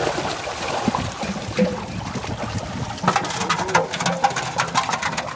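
Water splashing and slapping as a crowded mass of Thai pangas fingerlings thrash in a seine net at the pond surface, with the sharp splashes coming thicker after about three seconds.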